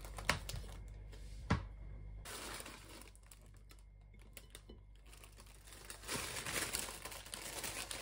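Paper bread bag rustling and crinkling as slices of bread are pulled out of it, louder near the end, with two light knocks in the first two seconds.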